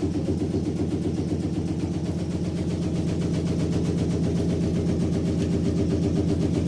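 Washing machine spinning with a steady hum and a fast, continuous rattle and knocking: the sign of an unbalanced load, the clothes not sitting evenly in the drum.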